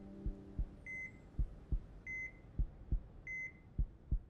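Hospital patient monitor beeping three times, about every 1.2 seconds. Between the beeps are four double heartbeat thumps (lub-dub) at the same slow pace.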